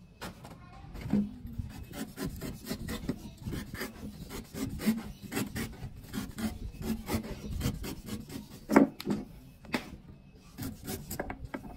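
A knife blade shaving the fibrous husk off a young green coconut in quick, irregular scraping strokes, with one sharper knock about three quarters of the way through.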